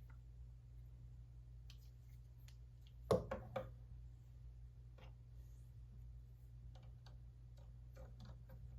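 LEGO pieces being handled and snapped together: scattered light clicks, with a quick cluster of louder clacks about three seconds in and a few more near the end.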